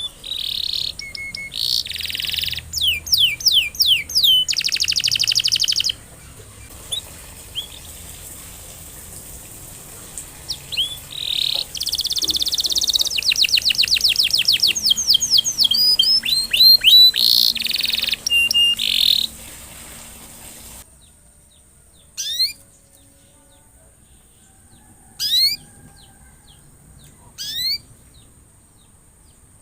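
Domestic canary singing: long bursts of fast trills and rolls of high, rapidly repeated notes. About two-thirds of the way through, these give way to single short sweeping chirps every two to three seconds.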